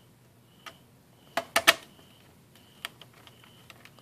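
Sharp clicks and taps of a small screwdriver and screws against a laptop's chassis as the hard-drive screws are driven in: a single click, a loud cluster of three about a second and a half in, then lighter ticks.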